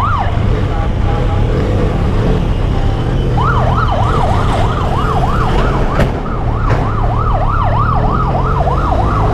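Yelp siren wailing rapidly up and down, about four sweeps a second. It breaks off just after the start and resumes about three and a half seconds in, over a motorcycle engine running underneath.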